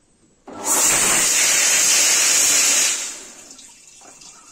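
Rotary drum filter's high-pressure cleaning pump firing its spray bar onto the drum screen: a loud spray of water that starts suddenly about half a second in, runs for about two and a half seconds, then dies away. The manual clean cycle is working.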